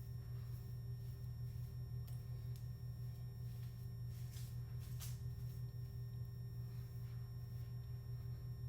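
Steady low electrical hum with a faint higher steady tone above it, and a few faint brief rustles about four and five seconds in.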